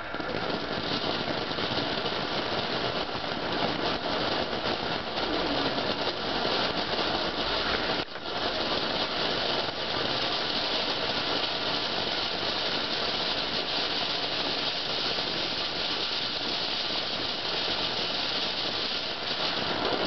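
Firework fountain burning on the ground, spraying sparks with a steady hiss and crackle. The hiss dips briefly about eight seconds in.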